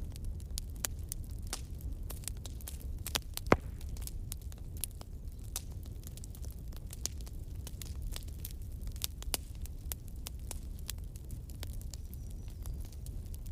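Bonfire crackling: irregular sharp snaps and pops over a low steady rumble, with one louder pop about three and a half seconds in.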